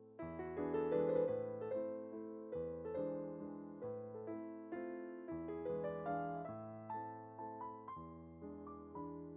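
Background music: a gentle piano melody, notes struck one after another with chords beneath.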